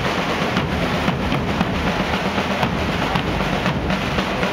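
Drums being played, struck at an uneven rhythm over a dense, steady background of noise.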